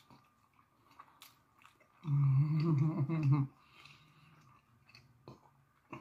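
Close-up chewing of a beef birria taco, with soft wet clicks of the mouth. About two seconds in, a loud closed-mouth 'mmm' hum of enjoyment, held for about a second and a half.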